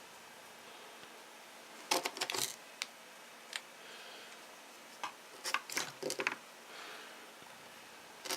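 Small hard clicks and metallic clatter of tools and parts being handled while a nitro RC truck's muffler is being removed, coming in two quick flurries about two and five seconds in, with a few single clicks between.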